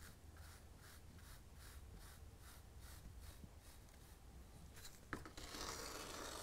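Faint scratching of a small tool worked back and forth over fine sand on model railway trackside, about four strokes a second. About five seconds in there is a click, then a slightly louder rub as a fingertip smooths the sand.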